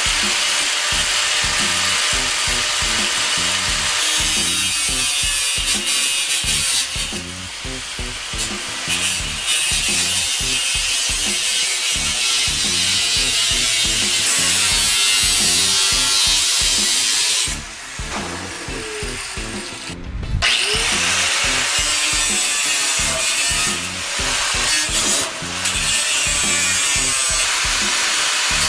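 Angle grinder with a thin cutting disc slicing through 22-gauge sheet steel: a loud, steady cutting screech. About two-thirds of the way through it drops away briefly, then the grinder spins back up and keeps cutting.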